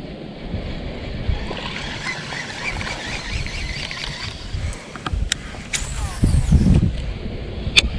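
Baitcasting reel: a whirring as line is reeled in, then a couple of clicks and a high falling whine as the spool spins out line on a cast, with another sharp click near the end as the reel is re-engaged. A low rumble of wind on the microphone runs underneath.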